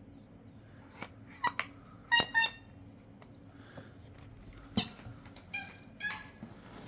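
Battery-powered pet sound ball toy giving off a series of short, high-pitched squeaky electronic sounds, about six in all, as it moves about.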